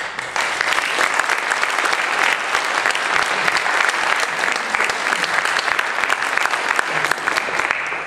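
Audience applauding: dense, steady clapping.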